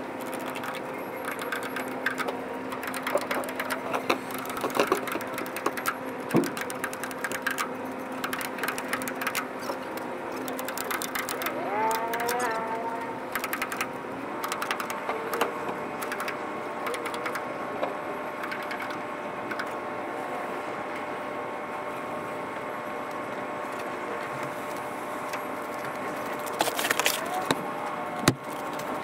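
Ratchet straps being cranked down on a load of pipes: runs of quick metallic clicks during roughly the first ten seconds. Under them is a steady engine hum that changes pitch about halfway through.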